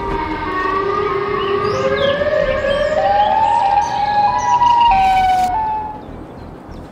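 Siren Head's siren call, a siren sound effect: a wailing tone that climbs slowly in pitch, in steps, and stops about six seconds in.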